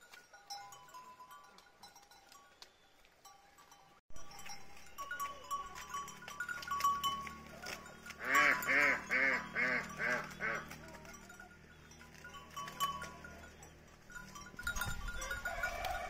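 A goat bleats once, a long wavering bleat about halfway through, while goats feed on corn stalks. Fainter animal calls and small clicks come before and after it.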